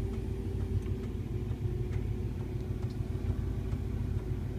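1956 Chevrolet Bel Air engine idling smoothly and steadily, a low even hum with a faint tick now and then.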